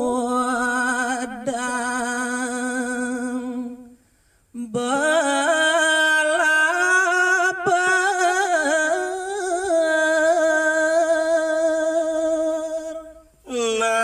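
A man singing Balinese geguritan (tembang in pupuh Ginada) unaccompanied, stretching the syllables into long, wavering, ornamented notes. The voice breaks off for a breath about four seconds in, then holds one long note until near the end.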